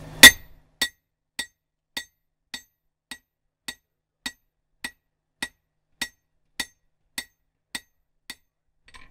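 One loud hammer blow on the anvil, then a run of about fourteen light, ringing metallic taps at an even pace of just under two a second.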